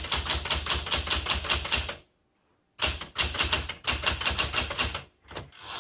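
Fast typing on a 1977 Smith Corona Classic 12 manual typewriter, a rapid clatter of key strikes in two runs with a short pause between them, then a few single strokes near the end. The typing is a test of whether the carriage skips a space, and no skip recurs.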